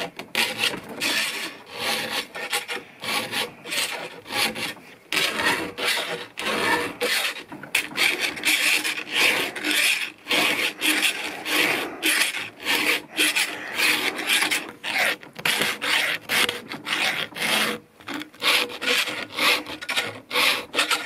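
Round chainsaw file rasping across the cutter teeth of a Milwaukee M12 Hatchet pruning saw's chain held in a vise, in quick repeated strokes with a couple of short pauses. The chain is being sharpened.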